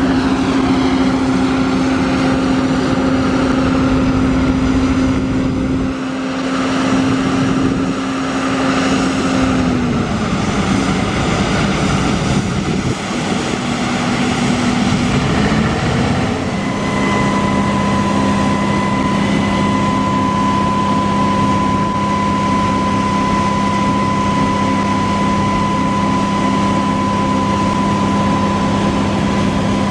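Large diesel farm machinery running steadily with a loud hum. The pitch drops about ten seconds in and again around sixteen seconds, after which a steady high whine joins it.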